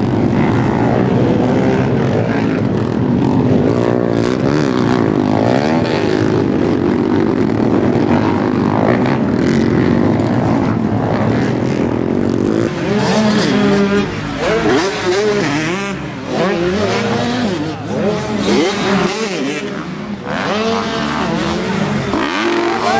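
Several dirt-bike engines running together, then from about halfway individual bikes revving up and down sharply in quick rises and falls.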